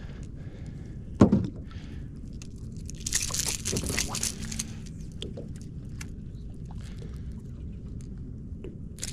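Steady low hum of a small boat on the water, with one heavy thump about a second in and a rushing hiss around three to four seconds in.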